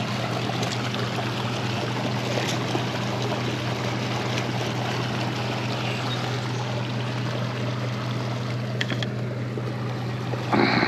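Steady rush of water from a warm-water discharge outflow, with a steady low hum underneath and a few faint clicks.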